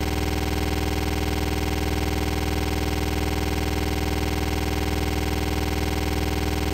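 Loud, steady buzzing drone with many overtones, unchanging in pitch and level.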